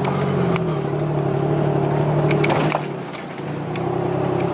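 Pickup truck engine running at low speed, heard from inside the cab. It eases off briefly about three seconds in, then picks up again. Scattered knocks and rattles come through as the truck crawls over rough ground.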